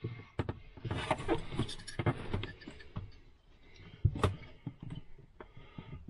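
Hands pressing the plastic cover back over a diesel air heater's glow plug: a run of small plastic clicks, knocks and handling rustle, with one sharper click about four seconds in.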